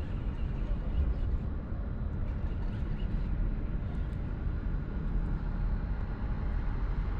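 Steady low rumble of wind on the microphone, with a few faint scattered ticks.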